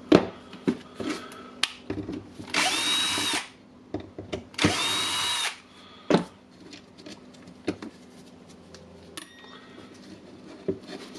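A small power-tool electric motor runs in two bursts of about a second each, its whine rising to speed, holding, then winding down. Short clicks and knocks of plastic parts being handled run between the bursts.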